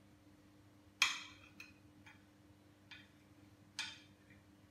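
Metal spoon breaking into a crisp, crunchy meringue nest: about five short sharp cracks and clicks, the loudest about a second in.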